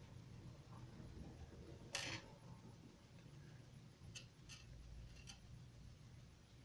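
Faint handling noises of small objects being worked by hand: a brief rustling scrape about two seconds in, then three light ticks, against near silence.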